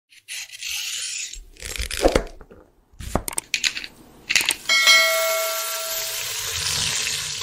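Animated-intro sound effects: a hissing whoosh, a low thud, several sharp clicks, then a bell-like ding about five seconds in that rings for over a second over a bright, shimmering sparkle.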